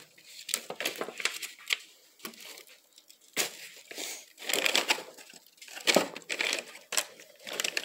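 Hands rummaging through a cluttered shelf: plastic bags and packaging crinkling and rustling, with light clicks and knocks of small objects being shifted, in irregular bursts.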